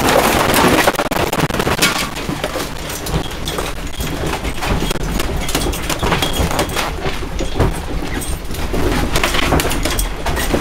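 A room and its contents rattling and clattering as a strong earthquake shakes them, with many irregular knocks over a steady low rumble.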